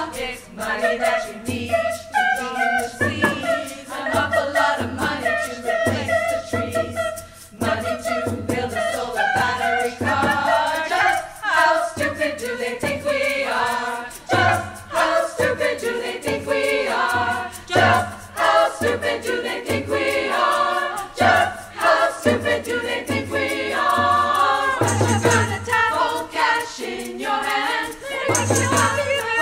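Women's choir singing live in harmony, with a frame drum keeping a slow, steady beat beneath the voices.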